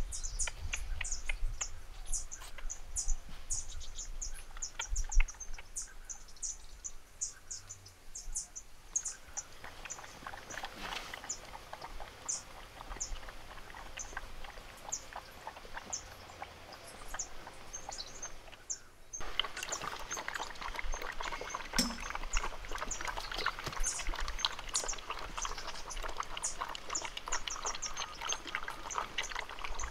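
High, rapid bird chirping over a soft outdoor hiss, with light rustling and scraping as loose sand is poured and smoothed on a clay slide. About two-thirds of the way through, the sound becomes suddenly denser and louder.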